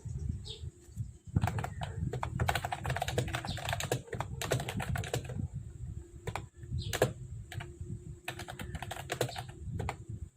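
Typing on a Mofii Sweet keyboard: quick runs of key clicks, one a few seconds long starting about a second in and another shorter run near the end, with a few single keystrokes in the pause between.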